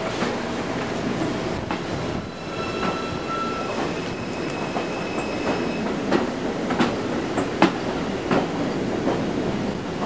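R142 subway train rolling slowly into a terminal station, with a steady rumble of wheels on rail. A high steady squeal sounds for a few seconds in the middle, and the wheels click over rail joints at a regular beat in the second half.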